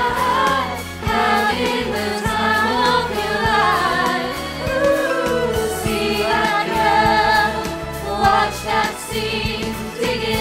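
A pop song with several voices singing together over a full band backing.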